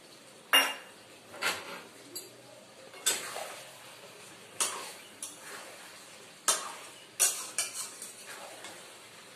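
A metal spoon knocking and scraping against a metal cooking pan as yogurt is spooned and stirred into a jackfruit curry: about seven sharp clinks at irregular intervals.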